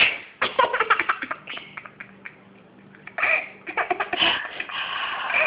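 A sharp sneeze right at the start, then a baby laughing in quick bursts of giggles, with a longer run of laughter from about three seconds in.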